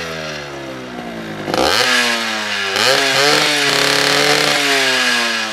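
Two-stroke motorcycle engine being revved: its pitch falls from a high rev, rises sharply twice about a second and a half and three seconds in, holds briefly, then slowly falls away.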